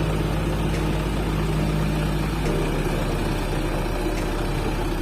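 Diesel engine of a JCB digger running steadily, its low note shifting about halfway through.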